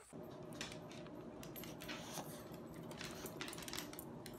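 Small dog's claws clicking and tapping irregularly on a hardwood floor, with light jingling, over a steady low room hum.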